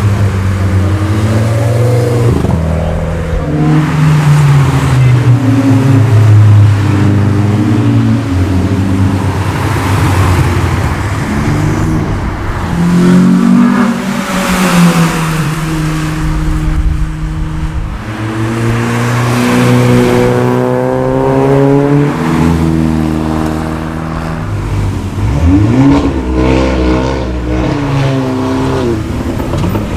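Several performance cars driving past one after another, their engines revving up and easing off, with the pitch climbing and falling on each pass.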